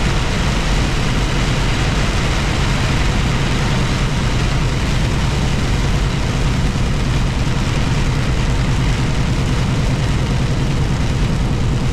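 Steady noise inside a moving truck's cab in heavy rain: the engine's low, even drone under a constant hiss of rain and tyres on the wet road.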